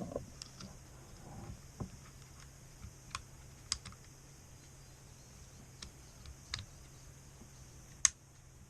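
Handling of a Winchester Wildcat .22 LR rifle: irregular small clicks and taps of the plastic and metal parts, about eight or nine in all, with the sharpest click near the end.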